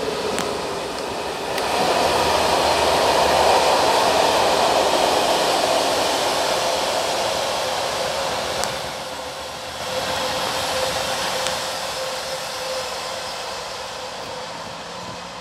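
Freight train of tank wagons behind an electric locomotive rolling past at speed: a steady rumble and rattle of wheels on rail. It is loudest a few seconds in and slowly eases off as the wagons go by, with a few sharp clicks.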